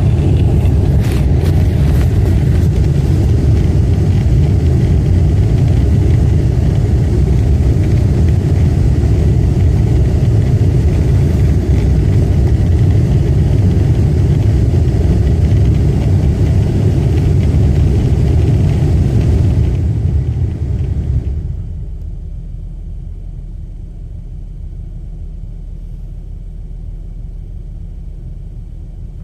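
Steady low rumble from a running car, which drops to a much quieter low hum about three-quarters of the way through.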